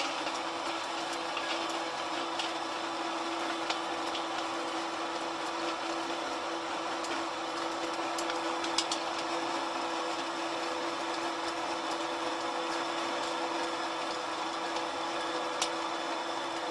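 Small flat die feed pellet mill running steadily under its electric motor, a constant mechanical hum with a few sharp clicks, as it presses feed into pellets.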